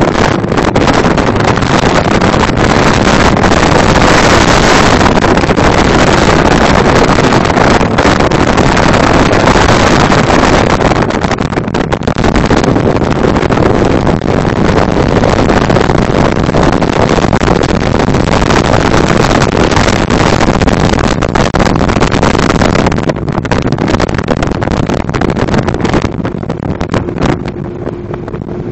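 Ride in an outboard-powered motorboat running at speed: a loud, steady rush of wind on the microphone and water, with the engine underneath. Near the end the rush eases and a faint steady hum comes through.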